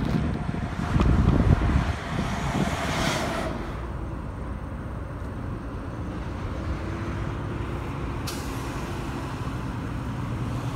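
Tractor-trailers on a highway: tyre and engine noise swells and fades as trucks pass. From about six seconds in, a steadier engine drone comes in as another semi approaches, with one sharp click a little after eight seconds.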